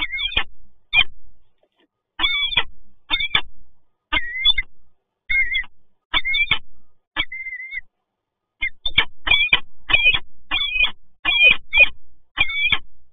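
Peregrine falcon calling over and over, a series of short, sharp calls that come faster from about nine seconds in.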